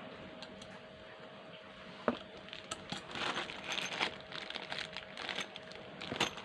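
Packaging being handled: a sharp click about two seconds in, then irregular crinkling and rustling with small clicks, over a faint steady hum.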